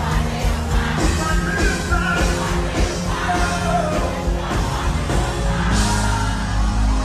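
Live Afrobeats concert music through a PA: a steady heavy bass and beat under a sung vocal, with yelling voices.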